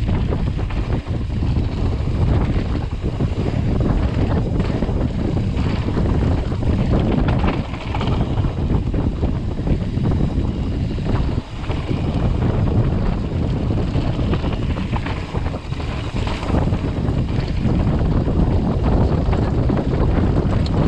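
Wind buffeting a head-mounted GoPro's microphone during a fast mountain-bike descent, over the rumble of tyres on a dirt trail and the rattle of the bike over bumps, with many short knocks.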